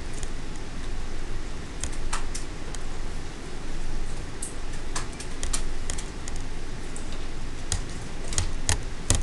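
Calculator keys being pressed: a dozen or so light clicks at irregular spacing, over a low steady hum.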